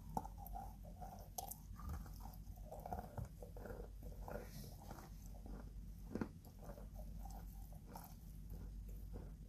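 A lump of chalk bitten and chewed, giving dry crunching and grinding. There is a sharp crack just after the start and another about six seconds in.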